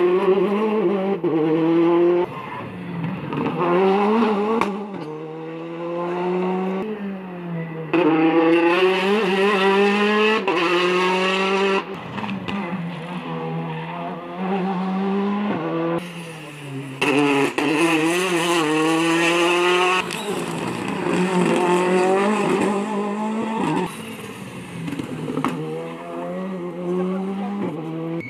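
Rally cars accelerating hard one after another. Each engine climbs in pitch through a gear, drops at the shift and climbs again.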